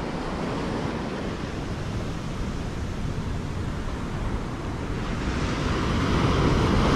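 Ocean surf breaking and washing up a sandy beach, with wind buffeting the microphone; the wash grows louder over the last two seconds.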